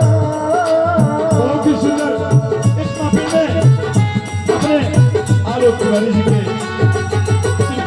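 Indian folk music between sung lines: a steady beat on a hand drum with rattling percussion and a melodic instrument line.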